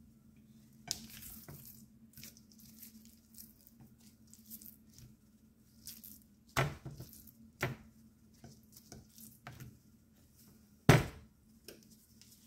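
Seasoning being shaken from plastic shaker bottles over raw steaks and rubbed in with gloved hands: soft shaking and rustling, with a few sharp knocks of containers being handled, the loudest about eleven seconds in.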